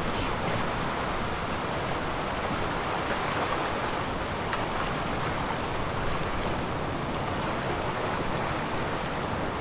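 Ocean surf, a steady rush of breaking waves.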